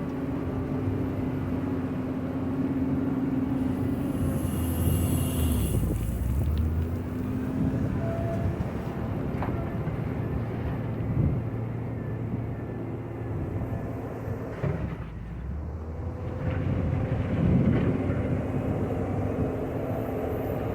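JCB 426ZX wheel loader's diesel engine running under load, its pitch rising and falling as the machine works, with a brief hiss about four seconds in.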